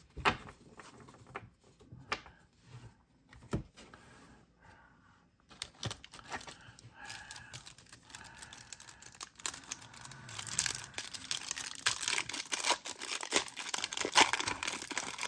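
A few light taps as a stack of trading cards is squared up, then the crinkling and tearing of a foil 1991 Upper Deck football card pack being ripped open, growing denser and louder over the last five seconds.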